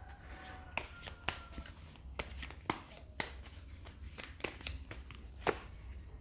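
Tarot cards being handled and shuffled: a scattering of short, soft clicks and flicks at irregular intervals.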